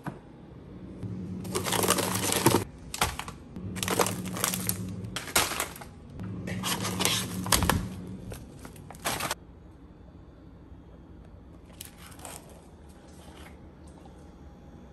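Plastic bags of frozen fruit crinkling and rustling as they are handled and the pieces shaken out, in three long bursts followed by a shorter one.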